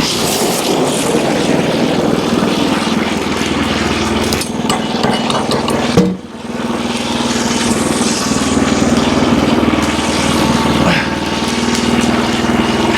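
Wood-Mizer LX25 portable sawmill running steadily, its band blade sawing through a hemlock beam. There is a single sharp knock about six seconds in.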